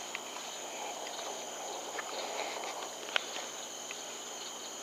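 A night insect chorus: steady, high-pitched trilling. A few faint clicks or ticks are heard, the sharpest about three seconds in.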